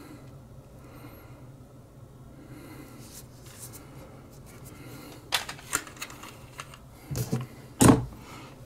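Small clicks and knocks of a brass lighter filler valve and small hand tools being handled on a bench. A few light clicks come about halfway through, then a louder knock near the end.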